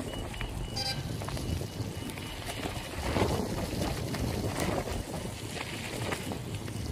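Wet street ambience in the rain: a steady low rumble with a hiss of water, swelling louder about three seconds in and again a little later.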